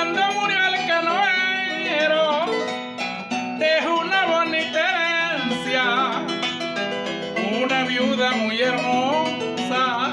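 A harp plucking a steady accompaniment while a man sings long, wavering held notes over it.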